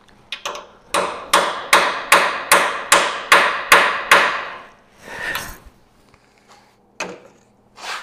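Hammer striking a transfer punch through the holes of an MDF template to mark the steel sawmill upright: two light taps, then about nine sharp metal strikes in a steady rhythm, roughly two and a half a second, followed by a short scrape.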